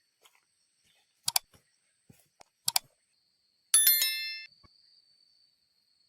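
Two sharp double clicks a little over a second apart, then one bright metallic ring like a small bell struck once, dying away within a second. A faint, steady high-pitched tone follows.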